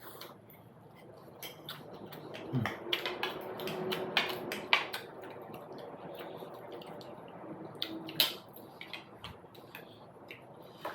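Close-up eating sounds of a meal of momos: scattered sharp clicks and clinks of cutlery and dishware, thickest from about two to five seconds in and again around eight seconds.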